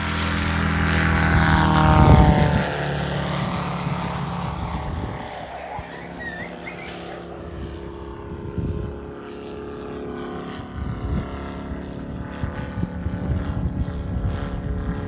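Moki 300 cc four-stroke radial engine of a large-scale model de Havilland Beaver, running as the plane flies low past. The engine note is loudest about two seconds in and drops in pitch as it passes. It then settles into a steady drone as the model climbs away overhead.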